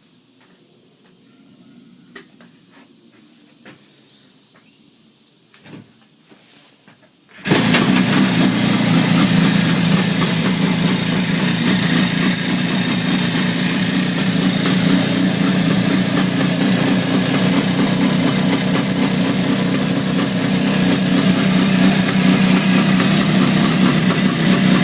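A few faint clicks and knocks, then about seven seconds in a 1967 Yamaha YR1's 350 cc two-stroke twin engine starts suddenly and runs on at a steady idle. This is the idle in which the owner hears a clicking noise.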